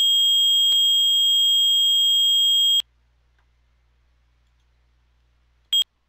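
Fire alarm control panel's trouble sounder, played by a Fike SHP Pro panel simulator, giving a steady high-pitched electronic tone that signals a trouble condition (an open notification appliance circuit). It cuts off suddenly about three seconds in as the silence switch is pressed, and one short beep of the same tone follows near the end.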